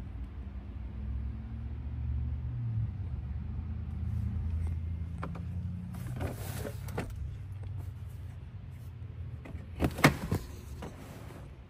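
A low, steady hum inside a car cabin, with rustling and a few sharp clicks as a handheld camera is moved about the rear seats. The loudest clicks come about ten seconds in.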